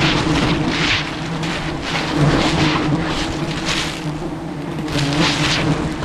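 A swarm of honeybees stirred up at their open comb, buzzing as a steady low drone close to the microphone, with a rushing noise that swells and fades every second or so.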